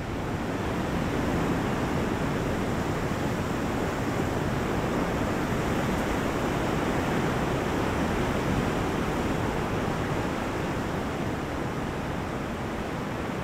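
Ocean surf on a rocky shore: a steady wash of noise that swells a little just after the start and eases slightly near the end.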